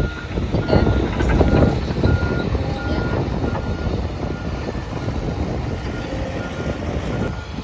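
Heavy diesel construction machinery running, with a reversing alarm beeping at a steady, regular pace under the engine noise.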